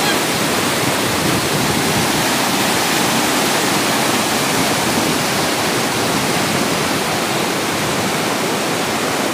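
Steady, loud rushing noise with no pitch or rhythm to it.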